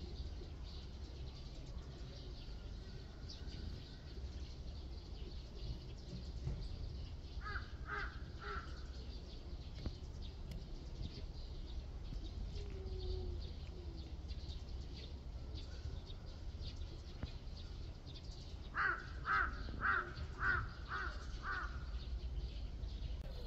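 A bird's short, harsh calls: three in a quick row about a third of the way in, then six more in a row near the end, about two a second. Under them is a steady low rumble.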